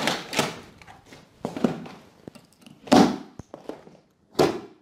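Large strapped cardboard box being handled and shifted by hand: a handful of short cardboard scrapes and thuds, with a couple of sharp clicks in between.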